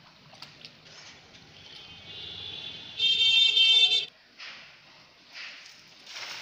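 A loud, high-pitched horn-like tone with many overtones, held for about a second about three seconds in, with a fainter one just before it. Short rushes of noise follow near the end.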